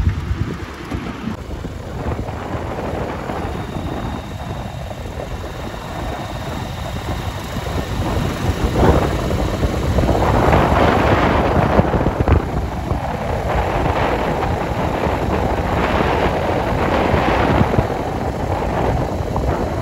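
Wind buffeting the microphone over the low rumble of a moving vehicle, growing louder and gustier about halfway through.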